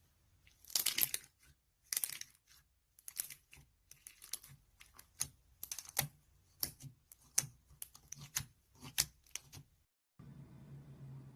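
Slime being played with, giving a run of irregular sharp clicks and crackles, about one or two a second. Near the end it cuts off to a low steady hum.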